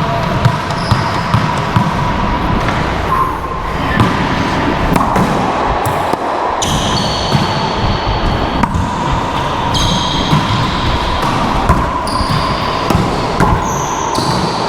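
Racquetball rally: the ball cracking off racquets and the court walls in irregular sharp hits, echoing in the enclosed court.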